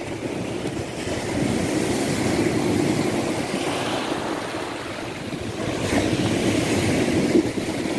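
Sea surf breaking and churning in the shallows at the mouth of a rain-swollen river, rising and falling as waves come in, with wind on the microphone.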